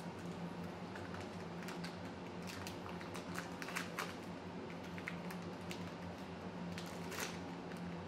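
Scattered light clicks and taps, most of them about three to four seconds in and one more a little after seven seconds, over a steady low hum.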